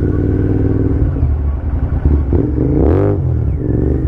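Royal Enfield Continental GT650's 648 cc parallel-twin running hard under throttle, ridden toward the top end of the rev range. About three seconds in, its pitch dips and climbs again.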